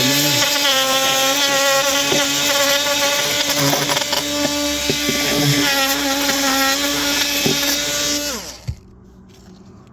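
Handheld electric power tool running at a steady speed, then switched off and spinning down about eight and a half seconds in, with a single click just after.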